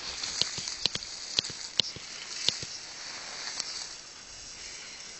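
Dry grass stalks crackling and snapping, with about six sharp cracks in the first two and a half seconds, over a steady high hiss.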